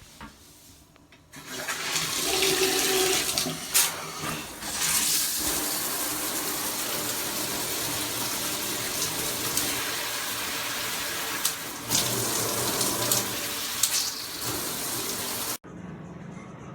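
Handheld high-pressure shower head spraying a steady stream of water. It starts about a second in and stops abruptly near the end, with a few short knocks along the way.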